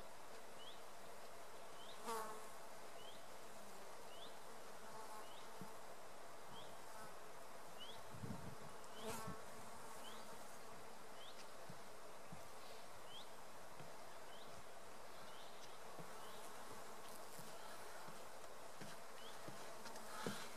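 Quiet woodland ambience with a faint, short, high chirp repeating about once a second and a few soft knocks.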